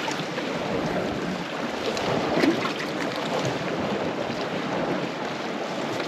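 Sea washing against the rocks at the foot of a cliff, with wind on the microphone: a steady rushing noise.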